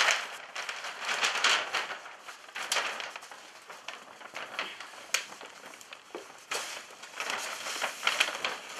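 Stiff kraft-paper bag rustling and crackling as it is shaken open and handled, with bundles of joss paper pushed into it. The rustles come in irregular bursts, with one sharp click about five seconds in.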